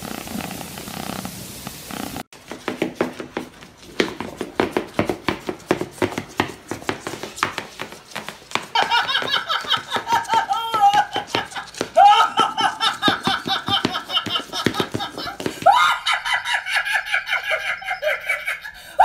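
A cat purring for about the first two seconds, then a woman laughing hard in quick, repeated peals that grow higher-pitched about halfway through.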